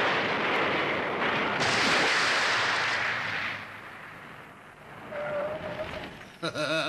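Cartoon sound effect: a loud rushing noise for about three and a half seconds, then dying away. A brief steady tone follows, and near the end a man shouts.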